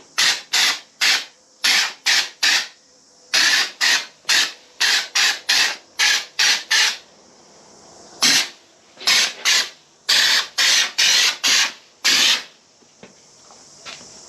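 Aerosol can of spray-on sound deadener hissing in short spurts, a couple of dozen in quick succession, with a pause about seven seconds in and quiet near the end.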